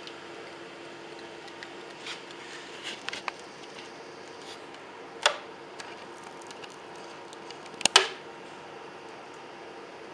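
Tint film being slowly peeled off car window glass: a few short sharp crackles and clicks, the two loudest about five and eight seconds in, over a steady low hiss.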